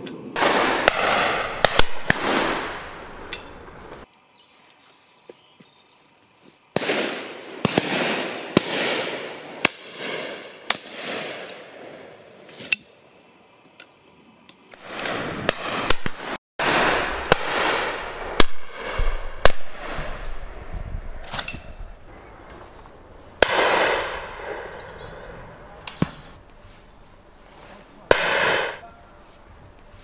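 20-bore shotgun and other guns firing at driven pheasants: many sharp shots in clusters, a second or two apart, each with a long echoing tail, some close and loud, others fainter.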